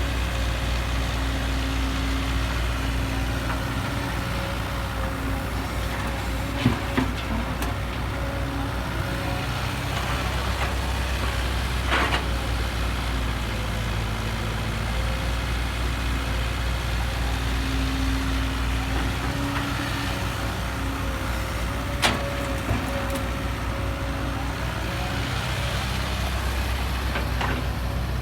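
Heavy diesel engine of earthmoving machinery running steadily, its note swelling and easing as it works, with a few sharp knocks and clanks along the way.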